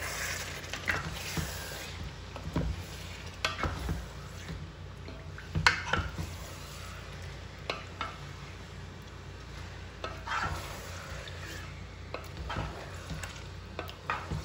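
Wooden spatula stirring and turning chicken pieces in a thick yogurt-tomato marinade in a pot, with irregular knocks and scrapes against the pot, the loudest about five and a half seconds in. A light sizzle runs under it as the chicken fries in the oil.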